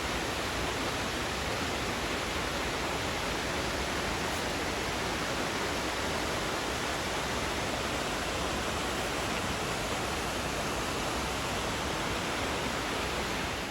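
Waterfall on Steels Creek, a steady rushing of falling water.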